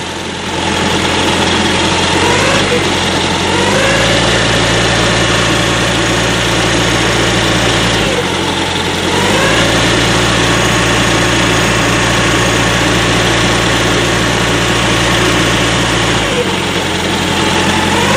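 Reefer unit's small diesel engine running steadily, just restarted after the fuel system was primed following a run-out of fuel. Its tone dips and climbs back a few times.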